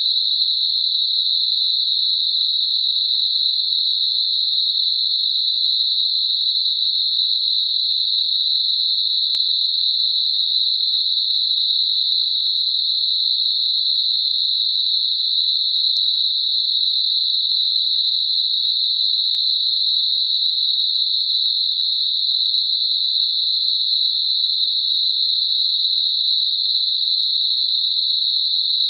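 Computer-generated Gaussian narrow-band noise centred on 4 kHz: a steady, high-pitched hiss that does not change, made as a masker for high-pitched tinnitus.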